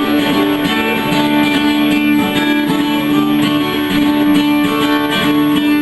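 Acoustic guitars strumming a steady country rhythm in an instrumental break with no singing. A long held note runs over the strumming for most of the break and changes near the end.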